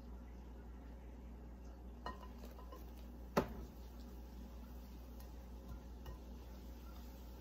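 A utensil clinking against a mixing bowl as beer batter is stirred: a light clink about two seconds in and a sharper, louder one about a second later, with a few faint ticks after, over a low steady hum.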